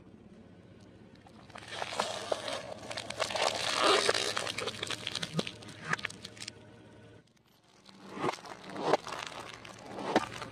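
Plastic-wrapped hard candies crackling and crunching as they are crushed, their wrappers crinkling: a dense run of crackles for several seconds, then after a short break about three separate crunches.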